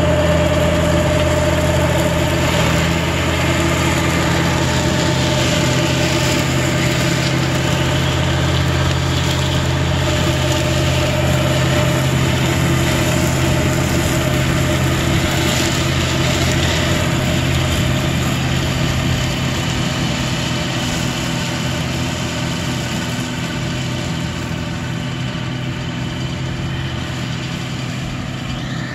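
John Deere 1025R compact tractor's three-cylinder diesel engine running steadily at working speed, driving the PTO flail mower through tall grass. The sound gradually fades as the tractor moves away.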